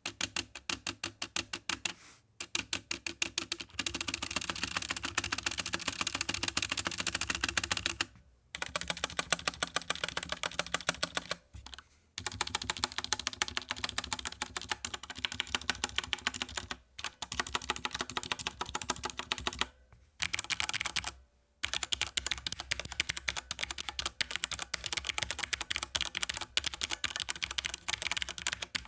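Fast typing on a Cooler Master Rapid I mechanical keyboard with Cherry MX Red linear switches and ABS keycaps: a dense clatter of keystrokes in long runs, broken by several brief pauses.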